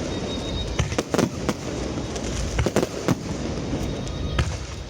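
Aerial fireworks going off: sharp bangs at irregular intervals, several in quick succession about a second in and again near the middle, and a single one near the end. A continuous noisy rumble of further bursts runs underneath.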